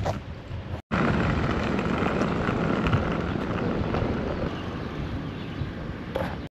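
Outdoor street ambience: a steady noisy rumble of wind on the microphone and road traffic, with a split-second gap just under a second in.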